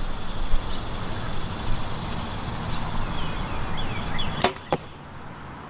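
A compound bow is shot: a sharp snap of the string at release about four seconds in, then a second sharp impact about a third of a second later as the field-point arrow strikes a target about 20 yards downrange. A steady rushing noise runs underneath until the shot.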